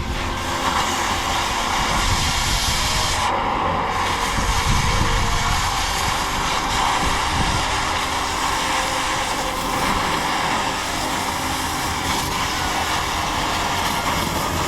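Blowtorch burning with a steady, continuous hiss while cutting off the hardware that holds a rail down.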